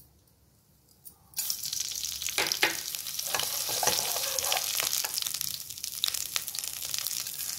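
Mustard seeds spluttering in hot sesame oil: a dense sizzle full of sharp crackles and pops that starts suddenly about a second and a half in. It is the popping stage of a South Indian tempering (thalippu), which shows the oil is hot enough.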